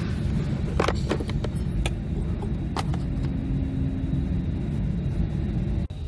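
Steady low rumble in a vehicle cabin, with a handful of sharp plastic clicks: a quick cluster about a second in and single clicks near two and three seconds. The clicks come as the USB/aux receptacle's wiring connectors are handled.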